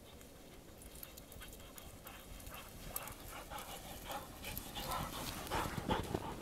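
A dog panting and its paws striking through snow as it runs up, getting steadily louder as it comes close.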